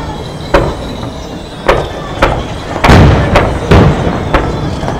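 Aerial fireworks shells going off in a string of about eight sharp bangs, each with a short echoing tail. They are spaced irregularly and grow louder and closer together about three seconds in.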